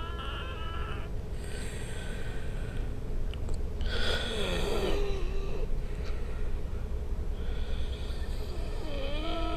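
Congested, wheezy breathing: noisy breaths broken by high, wavering whistles, one near the start, one about four seconds in that slides down in pitch, and one near the end. Such wheezing is typical of airways narrowed by bronchitis.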